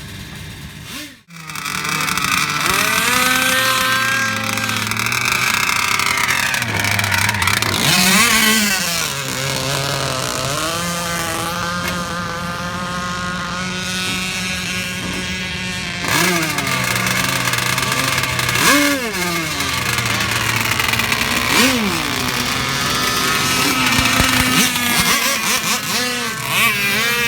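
RC speed boat's motor running at high speed, its pitch rising and falling as the throttle is opened and eased off, with a brief dropout about a second in.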